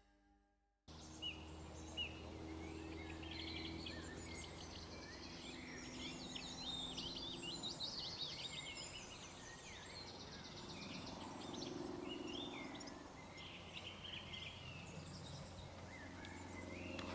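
Several small birds singing and chirping in quick, overlapping trills and twitters, heard faintly over a steady low background noise. The sound starts about a second in.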